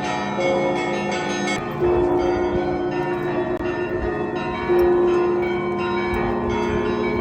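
Russian Orthodox monastery bells of the Alexander Nevsky Lavra ringing. Smaller bells chime quickly throughout, and a large, deep bell is struck about two seconds in and again about five seconds in.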